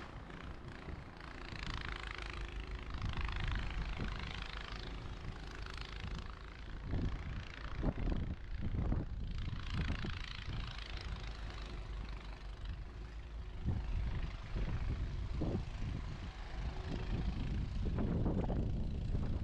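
Wind rumbling on the microphone, with the hiss of vehicles passing on a snowy road swelling twice and a few low thumps.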